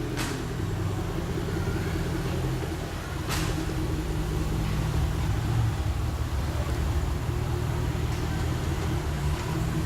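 Car engine running steadily with road noise from a moving car, with two short clicks, one at the start and one about three seconds in.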